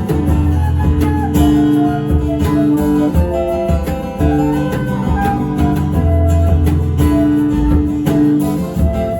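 Band music in an instrumental passage: strummed guitar over a bass line, with long held notes.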